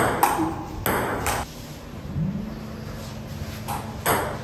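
Table-tennis ball clicking off the paddles and table during a rally, several sharp hits in the first second and a half, then a lull, then two more hits near the end. A faint low hum comes in about two seconds in.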